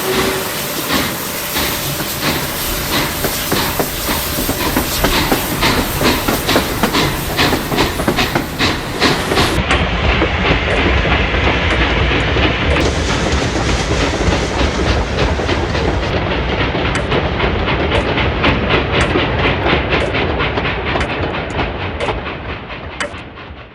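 Steam locomotive running along the track: a steady, rhythmic beat of exhaust chuffs and rail clickety-clack over a hiss of steam. The mix changes abruptly a few times and fades near the end.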